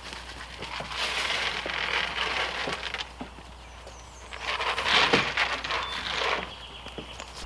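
Goat grain poured from a plastic scoop into a feeder, twice: each pour is a rattling hiss of many small pieces falling, the second louder.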